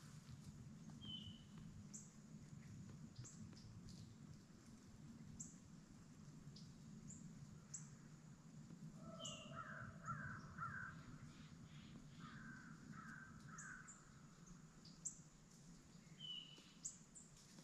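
A quiet outdoor background with a low steady hum. A bird gives two runs of three harsh calls, about nine and twelve seconds in, and a few faint short chirps come through now and then.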